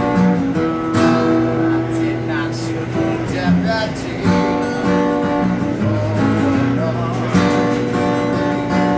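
Acoustic guitar strummed and picked, chords ringing on between sharper strokes.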